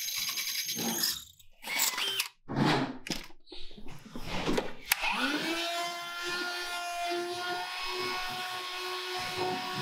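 Cordless drilling stops about a second in, followed by a few seconds of knocks and rattles as a DeWalt cordless vacuum is handled. About five seconds in, a switch clicks and the vacuum's motor spins up with a rising whine, then runs steadily.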